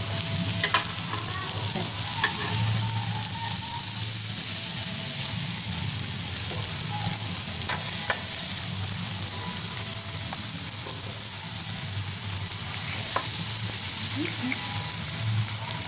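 Whole shrimp sizzling steadily on a hot grill plate, a constant high hiss, with a few light clicks of metal tongs against the grill as they are moved.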